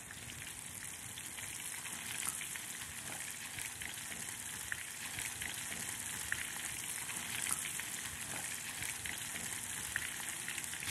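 Flour-dredged chicken pieces shallow-frying in vegetable oil in a cast iron skillet: a steady sizzle with scattered small pops, growing a little louder as more pieces are lowered in.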